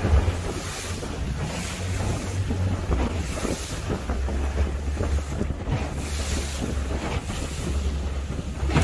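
Wind buffeting the microphone over the rush of water as a small open fishing boat runs through choppy sea, with irregular surges as the hull meets the waves.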